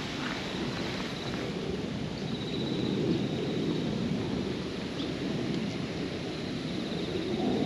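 Steady outdoor background noise with wind buffeting the microphone, and a faint high-pitched trill twice, about two and a half seconds in and near the end.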